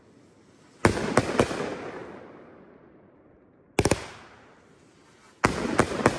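A 500-gram consumer firework cake firing its shots: three groups of two or three sharp bangs, about a second in, near four seconds and near the end, each trailing off in a long echo.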